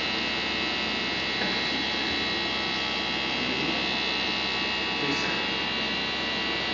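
UV flatbed printer running idle after a print: a steady machine hum with a constant high whine above it.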